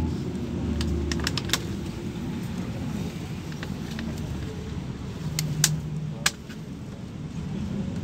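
Inside a LiAZ 5292.67 city bus under way: steady low engine and road drone, with sharp rattles and clicks from the cabin fittings. There is a cluster of them in the first second and a half and a few more around five to six seconds in.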